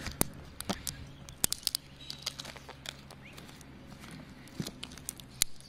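Eternabond butyl seal tape being peeled by hand off a van roof, the sticky adhesive letting go in irregular sharp crackles and ticks as it stretches into strings.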